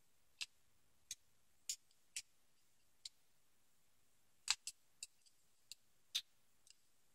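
Small, sharp metallic clicks and ticks, about a dozen at irregular intervals, from a small screwdriver working at the back of a brass Corbin Russwin lock cylinder while the lock is taken apart. The sharpest click comes about four and a half seconds in.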